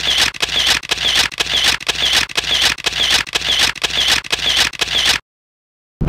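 A rapid, even run of sharp mechanical clicks, about four a second, that cuts off suddenly about five seconds in.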